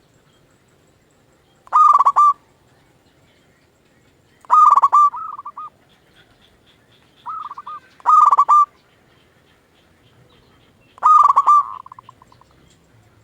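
Zebra dove (perkutut) singing: four loud, rolling cooing phrases about three seconds apart, some trailing off in softer notes.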